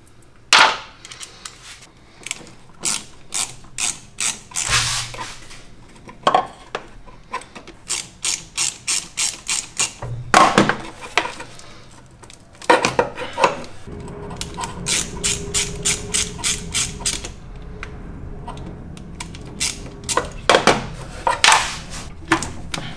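Hand socket ratchet clicking in runs of quick strokes, with separate sharp clicks of metal tools, as small 6 mm fasteners are undone. A faint steady hum joins partway through.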